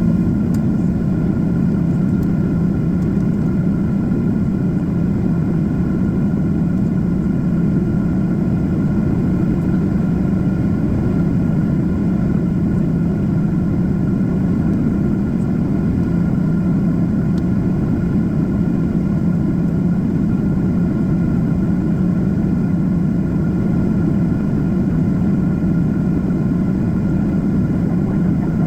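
Boeing 767-400's twin turbofan engines and airflow heard from inside the cabin during the climb: a steady, deep rumble with a faint steady whine in it.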